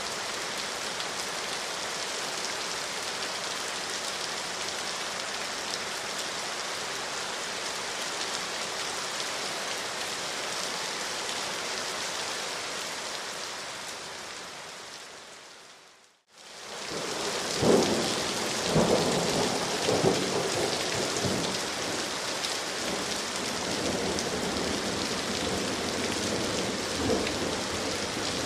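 Steady rain falling, an even hiss. About 16 seconds in it fades out to a moment of silence and fades back in. A run of low thumps or rumbles follows over the rain for several seconds, the loudest just after it returns.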